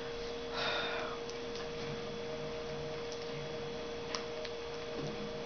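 Steady electrical hum with a few faint, isolated clicks, and a brief soft rustle about half a second in.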